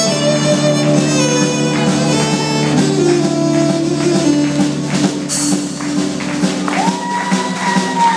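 Live country band playing an instrumental break, a fiddle leading over electric guitars and drums, with a long held high note near the end.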